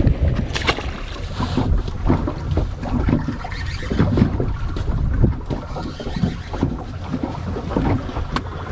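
Wind buffeting the microphone with low rumble, and irregular small knocks and clatter on a fishing boat's deck.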